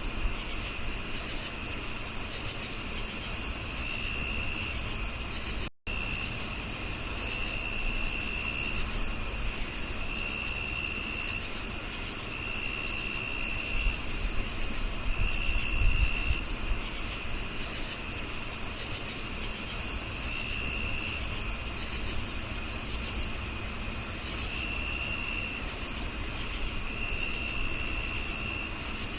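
Crickets chirping: a steady high-pitched trill, one cricket chirping about twice a second, and a lower trill coming in bursts of about a second every few seconds. The sound cuts out for an instant about six seconds in.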